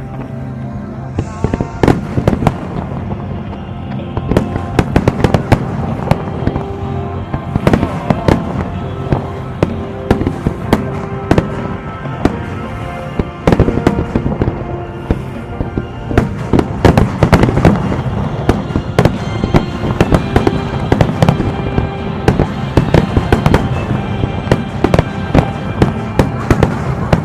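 Aerial fireworks display: a dense run of sharp bangs and crackling bursts in quick succession, over music playing.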